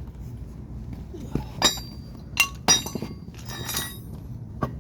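Small metal parts clinking and ringing as they are handled: about five sharp clinks, starting about a second in.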